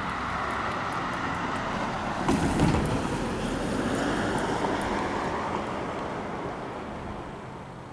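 A vehicle passing by, its rumble swelling to a peak near the middle and fading away, with wind buffeting the microphone.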